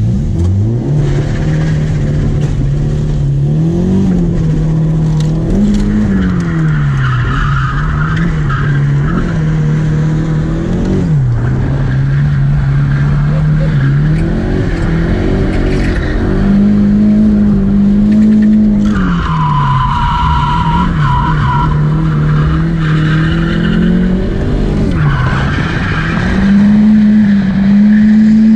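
Nissan S13's turbocharged SR20DET four-cylinder engine heard from inside the cabin, revving up and down repeatedly as the car drifts. The tyres squeal in three stretches: about a quarter of the way in, past the middle, and near the end.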